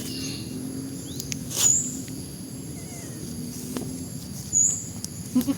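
Outdoor ambience over a low steady hum, with two short high bird chirps, about one and a half seconds and four and a half seconds in.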